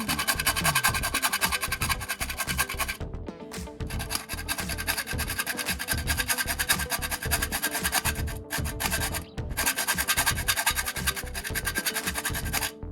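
Music playing, with scratching and rubbing over it.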